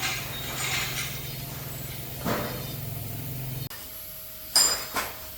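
Metal tools and parts knocking during truck axle work over a steady low machine hum. The hum stops abruptly about two thirds in, then two sharp metal clinks ring out near the end.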